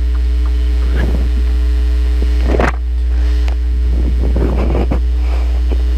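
A loud steady low hum with a vehicle engine running steadily under it, and a few brief rushes of noise.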